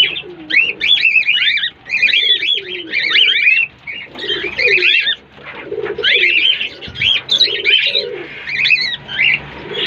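Caged birds, cockatiels among them, chirping continuously in rapid, overlapping rising and falling calls, with lower gliding calls underneath.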